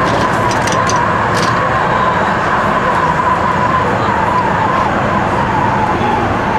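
DÜWAG Kurbelwagen tram under way, heard from the driver's cab: a steady running noise with a high whine that wavers slightly in pitch.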